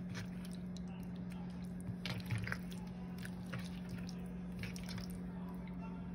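Wet squelching and small clicks of raw chicken strips coated in mustard marinade being handled, a cluster of them about two seconds in, over a steady low hum.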